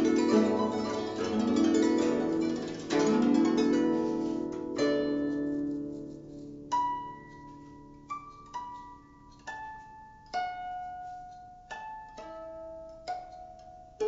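Guzheng played solo: a dense, fast run of plucked notes for the first four or five seconds, then single plucked notes about one a second, each ringing out and fading, the playing growing quieter toward the end.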